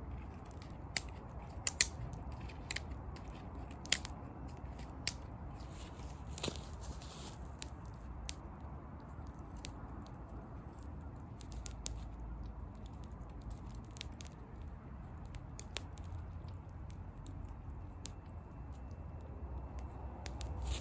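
Wood campfire crackling: sharp pops at irregular intervals, a few much louder than the rest, over a steady low rumble.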